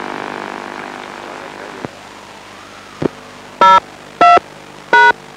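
Three short touch-tone (DTMF) beeps, each a different pair of tones, about half a second apart near the end, over a steady hum and hiss of received radio audio. A single click and a soft thump come before the beeps.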